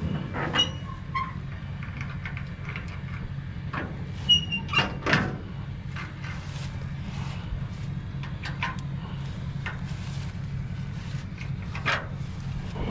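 Vehicle engine idling steadily, with scattered knocks and clatter over it, a cluster about four to five seconds in.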